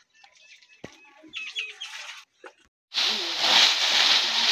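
Dry fallen leaves rustling and crackling loudly as they are scooped up by hand, starting suddenly about three seconds in. Before that there are faint small knocks and a few short bird chirps.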